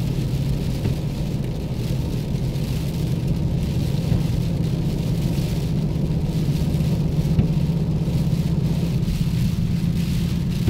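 Steady cabin noise of a car driving at freeway speed on wet pavement: a low, even drone with a hiss of tyres on the wet road.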